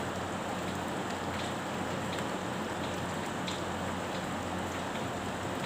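Steady rain-like hiss with a low hum beneath it and a few faint light ticks.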